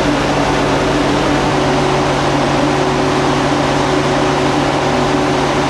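Diesel engine of a DB class 601 TEE power car running steadily, heard close up in its engine compartment: a loud, even drone with a steady low hum.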